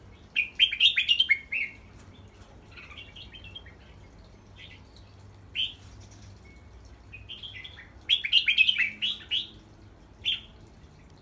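Red-whiskered bulbul singing: a quick burst of bright chirpy notes about half a second in and another about eight seconds in, with a few single calls between.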